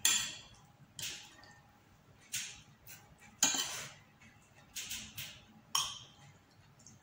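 Metal spoon and fork clinking and scraping against a ceramic plate and bowl during a meal, about seven or eight short separate strokes.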